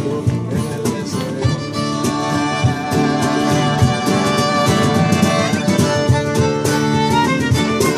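Acoustic folk-rock band playing an instrumental passage: a fiddle leads over button accordion and strummed acoustic guitars, with a steady rhythmic pulse and no singing.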